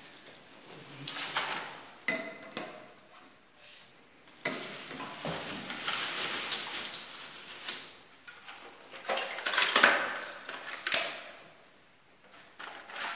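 Clear plastic bags rustling and crinkling while black plastic vacuum-cleaner nozzles and wand parts are handled and unwrapped, with hard plastic parts now and then knocking together in sharp clicks. The rustling comes in irregular bursts and is loudest about two-thirds of the way in.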